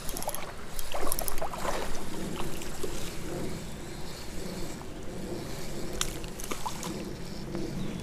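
Water splashing and sloshing, with a few short clicks, as a hooked small smallmouth bass is fought and reeled in on a spinning rod and reel.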